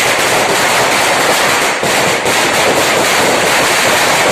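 Firecrackers going off in a dense, continuous crackle of rapid bangs with no break.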